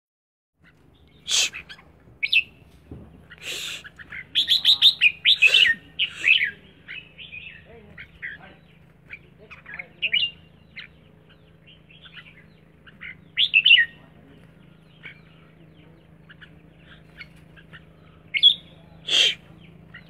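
Red-whiskered bulbul singing in bursts of quick, warbling whistled phrases, busiest around the fourth to sixth second, with short pauses between bursts. A faint steady low hum runs underneath.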